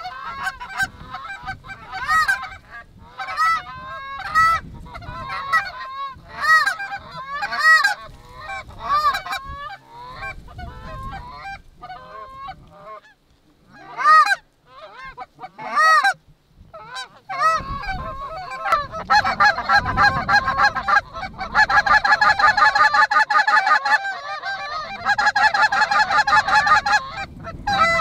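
Canada geese honking: separate rising-and-falling honks with short gaps, then from about nineteen seconds in a dense, fast chatter of many calls.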